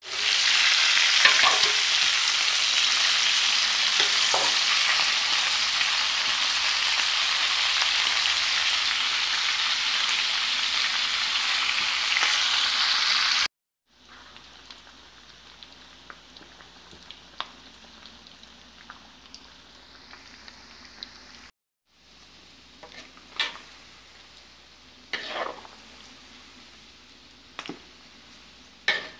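Cubes of pork fatback frying in a wok, sizzling steadily as the fat renders out for torresmo. The sizzle is loud for about the first half, then much quieter with small pops, and near the end a metal spatula clatters and scrapes against the pan a few times as the pieces are stirred.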